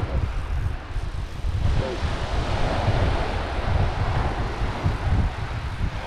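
Wind buffeting the microphone in a steady low rumble, over the rush of surf breaking on a shingle beach.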